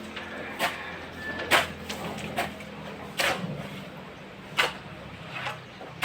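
Sharp knocks at irregular intervals, roughly one a second, over a low steady hum: hand tools striking soil and broken rubble during manual construction work.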